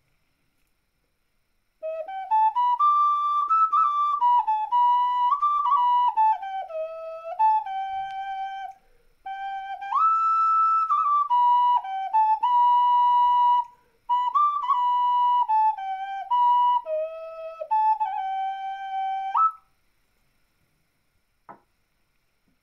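Ceramic ocarina in E minor, tuned to A=432 Hz, playing a slow melody of held notes with two brief pauses. Near the end comes a single small knock as an ocarina is set down on a wooden table.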